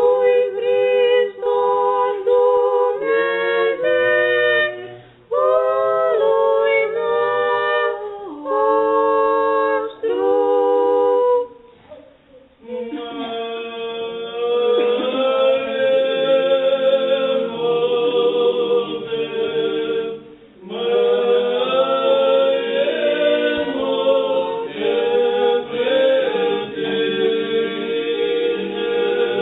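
Unaccompanied Orthodox liturgical choir singing. For about the first eleven seconds the voices sing clear, held notes. After a brief break, fuller singing with many voices follows.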